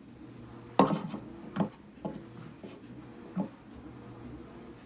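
Small figurines being set down on a wooden desk: about four sharp knocks and taps, the loudest about a second in.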